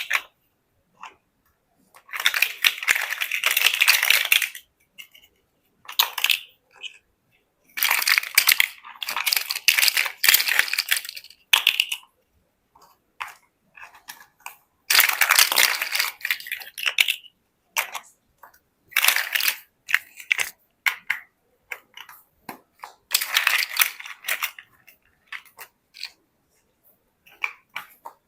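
Plastic Lego bricks clattering and clicking as they are handled and snapped together, in dense bursts of a few seconds with scattered single clicks in between.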